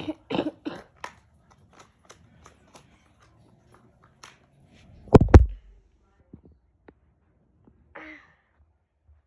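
A heavy thump about five seconds in, amid light clicks and handling noise. A child's voice says a few words right at the start, and there is a short vocal sound near the end.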